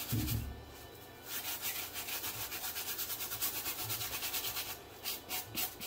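Copper-bristle brush scrubbing wet smooth leather boot in rapid back-and-forth strokes, a scratchy scraping that scrubs dried paint off the leather. The strokes pause briefly about half a second in and thin out near the end.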